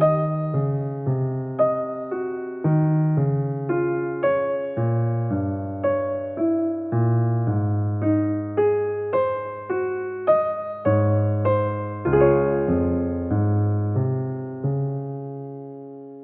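Background music on piano: a gentle melody of notes struck about twice a second over low bass notes, fading out over the last couple of seconds.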